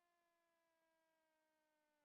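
Near silence: a very faint steady tone with overtones, sliding slowly lower in pitch.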